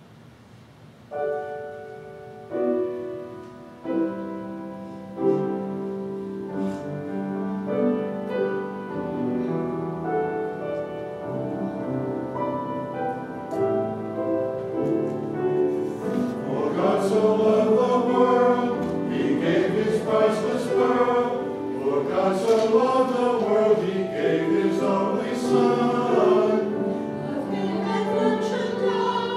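Piano introduction of slow, separately struck chords that ring and fade, followed about halfway through by a church choir singing with the piano accompanying, the voices louder and fuller toward the end.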